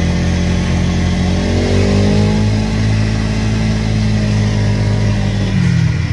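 Yamaha snowmobile engine running as the sled rides along, its pitch climbing about two seconds in as the throttle opens, holding steady, then easing off slightly near the end.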